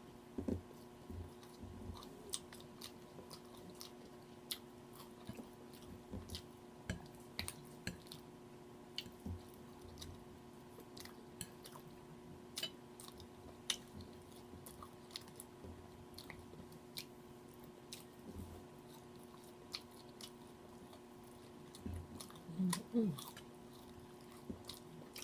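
Close-up chewing of crispy fried chicken: irregular crunches, mouth clicks and lip smacks at an uneven pace.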